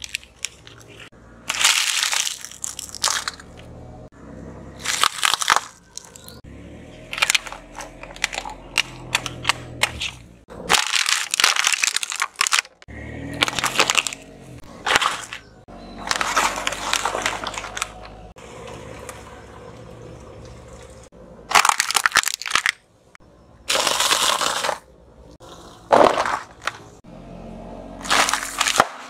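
A car tyre rolling over and crushing a series of small objects, polka-dot cups and a fruit jelly cup among them: a string of loud crunching and cracking bursts, each a second or two long, with quieter gaps between.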